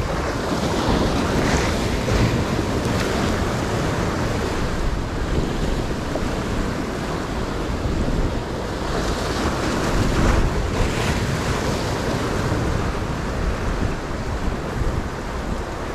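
Surf breaking and washing over a rocky shoreline, with wind buffeting the microphone. The wash swells louder about two seconds in and again around ten seconds.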